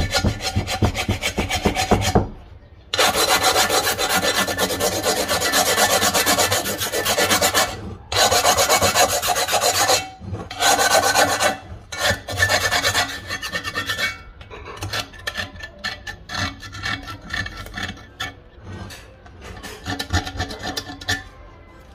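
A knife blade scraping rust and crust from the inside of an old cast-iron pot, metal grating on metal. Long continuous strokes with brief pauses give way after about twelve seconds to shorter, choppier scrapes that grow fainter near the end.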